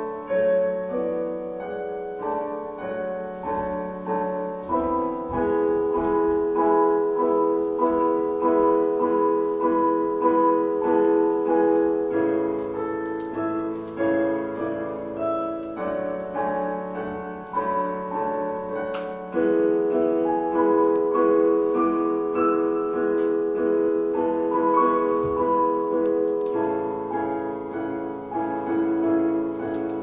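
Piano music, with held chords and a melody moving every second or so.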